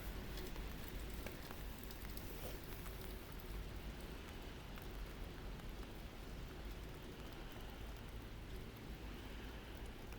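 Steady rain falling, with scattered faint ticks of drops and a low, steady rumble underneath.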